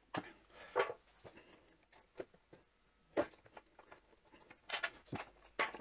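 Scattered light clicks, knocks and rustling of a battery charger's cable and plug being handled and pulled out.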